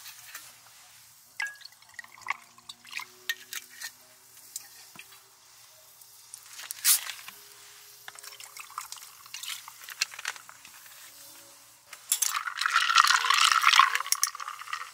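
Light clinks and taps of things being handled, then about two seconds of liquid pouring near the end.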